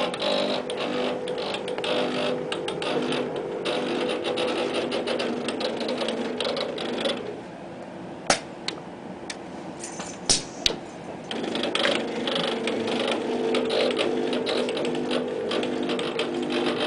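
A pick-and-place robot arm's motors and gearing whirring with a rapid chatter as the arm moves. The whir stops for about four seconds midway, marked by three sharp clicks, then starts again.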